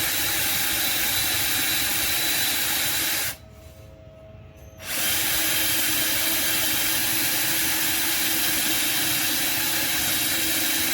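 Cordless drill running steadily while boring a hole through a tube rail; it stops a little after three seconds in, pauses for about a second and a half, then starts up again.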